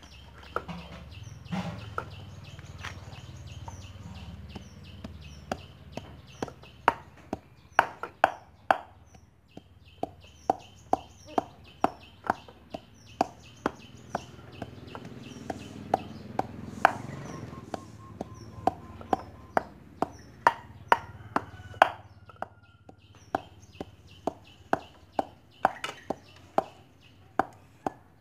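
Cleaver chopping on a round wooden chopping block: sharp knocks at irregular intervals, about one to two a second, some much louder than others. A faint high steady tone comes and goes behind them.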